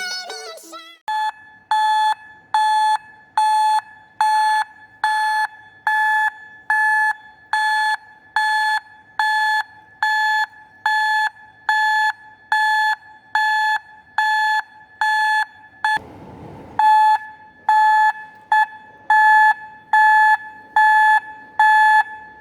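Car reversing alarm (backup beeper) sounding a steady run of short beeps at one pitch, a little more than one a second. The beeps break off once for under a second about three-quarters of the way through, then resume.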